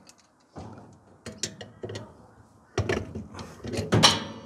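Pliers working at a dryer's seized idler pulley to pull it off its post: irregular metal clicks, scrapes and creaks, loudest a little before the end. The idler has stuck fast on its grippy post and is breaking apart.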